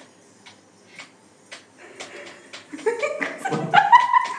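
People laughing, starting about three seconds in after a quiet stretch with a few faint clicks; the laughter gets louder toward the end.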